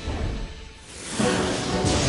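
Cartoon soundtrack music that swells louder about a second in.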